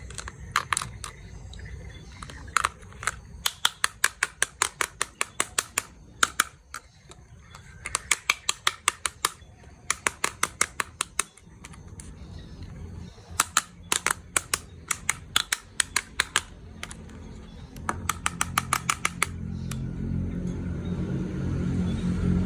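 Repeated runs of sharp clicks, about six or seven a second, each run lasting one to three seconds, with a low steady hum underneath that grows louder near the end.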